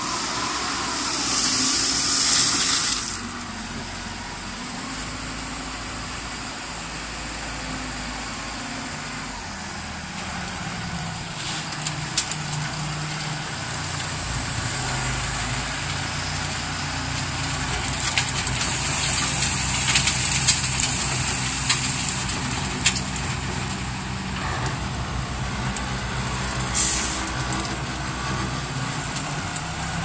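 Self-loading concrete mixer truck's diesel engine running under load, its pitch rising as the loader bucket is raised. Early on, a loud crunching hiss of the bucket pushing into gravel. Later, a spell of hiss with sharp clicks of stones rattling and falling as the bucket goes up to the drum's hopper.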